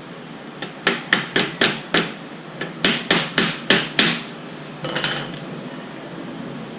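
Sharp knocks of a hand tool striking the radiator as it is being opened: two quick runs of five strikes, about four a second, then a short rattle about five seconds in.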